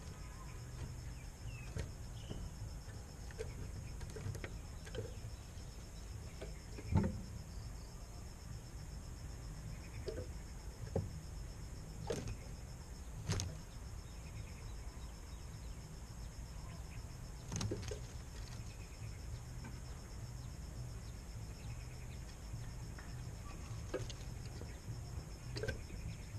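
Quiet outdoor ambience: a steady high insect drone over a low rumble, with a handful of short knocks and clicks scattered through it, the loudest about seven seconds in.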